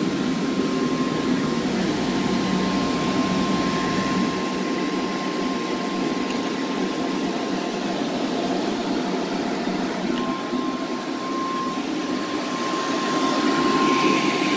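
Small electric blower fan feeding a blown ribbon-burner forge, running with a steady rushing hum and a thin whine.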